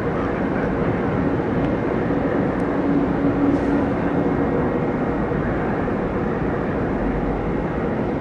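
Jet airliner engines running, a steady loud rush of noise with a faint low hum that holds throughout.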